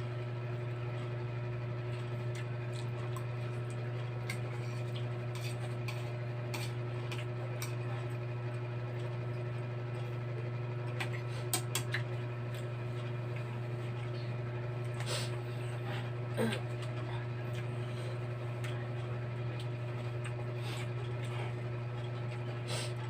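Eating at a bowl of spicy noodles: scattered light clicks of utensils against the dish, a few louder ones near the middle, over a steady low hum.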